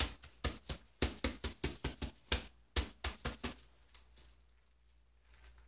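Fingers quickly tapping a wet, ink-sprayed sheet of deli paper down onto another sheet to print it off, about four or five light taps a second for some three seconds, then stopping.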